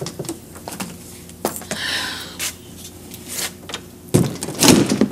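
An interior door being opened and pushed shut, with footsteps and scattered knocks. The loudest noise comes about four seconds in.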